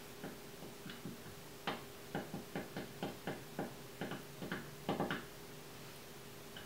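A bird attacking a window, tapping at the glass: a run of about fifteen quick, sharp taps, irregular, a few a second, lasting about three and a half seconds.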